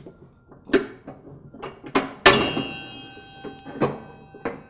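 A series of metal clinks and knocks from the steel front deck attachment of a Troy-Bilt Pony lawn tractor's mowing deck as it is unpinned and worked loose by hand and with pliers. There are about five sharp knocks. The loudest, a little over two seconds in, rings briefly.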